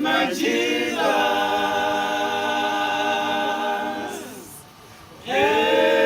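A cappella gospel choir singing without words, holding a long sustained chord that fades out about four seconds in, then coming in together on a new held chord about a second later.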